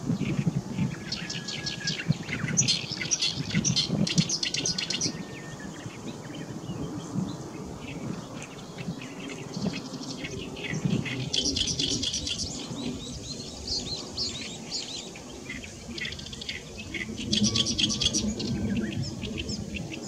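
Oriental reed warbler singing its lively song in bouts of rapid, repeated notes: a loud bout about a second in, another around ten seconds, and a third near the end, with scattered notes between.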